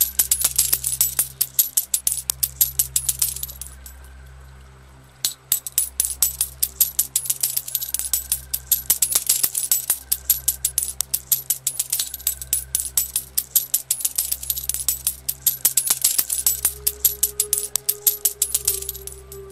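Coins pouring and clinking, in long runs of rapid small metallic clicks that break off about four seconds in and start again a second later, over a low, steady music drone.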